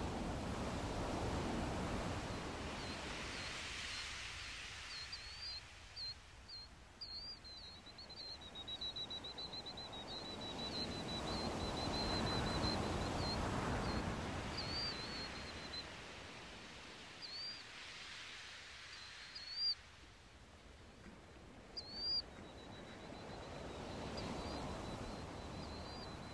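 Sea waves washing ashore in slow swells about every twelve seconds, with small birds chirping and trilling high above them.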